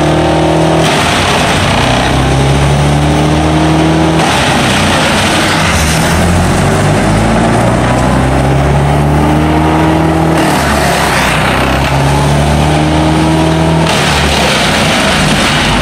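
Large engine-driven wood chipper running hard. The engine pitch sags and climbs back again and again as material feeds through, with a surge of chipping noise every few seconds.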